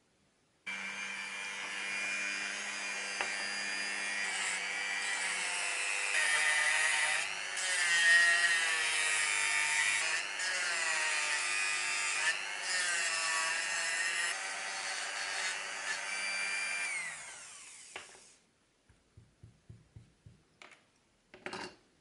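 Handheld rotary tool with a sanding drum switched on and sanding a tiny wooden part, a steady high whine whose pitch dips several times as the wood is pressed against the drum. The motor winds down with a falling whine near the end, followed by a quick run of light taps.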